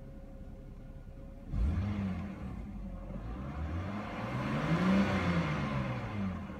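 BMW 328xi's 3.0-litre straight-six, fitted with a newly replaced ignition coil, idling, then revved. About a second and a half in it blips up sharply, then it climbs more slowly to a peak near the five-second mark and falls back toward idle near the end.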